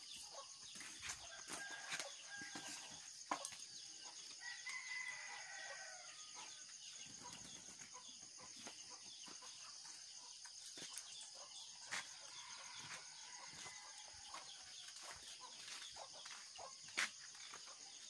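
Distant roosters crowing faintly, one drawn-out crow falling in pitch about five seconds in, over a steady high hiss, with a few sharp clicks.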